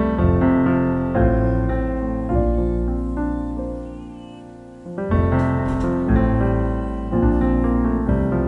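Background piano music, chords changing about once a second; it fades away about four seconds in, then starts again a second later.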